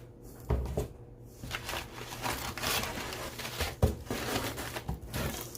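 Paper and packaging rustling and crinkling as items are handled and pulled from a box, with a couple of dull thumps.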